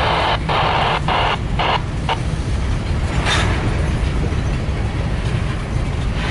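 Freight train rumbling steadily, with a choppy hiss that breaks on and off over the first two seconds and a short hiss about three seconds in.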